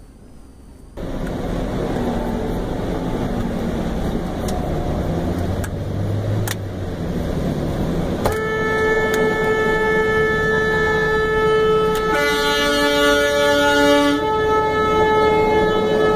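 Road noise of a moving vehicle, then about eight seconds in a vehicle horn sounds and is held steadily for about eight seconds; a second, lower horn tone joins for about two seconds in the middle.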